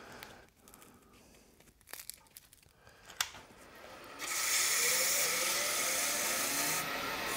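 Sandpaper being handled with small rustles and clicks, then, about four seconds in, a steady loud hiss as the sandpaper is pressed against the tenon of a wooden stool leg spinning on the lathe.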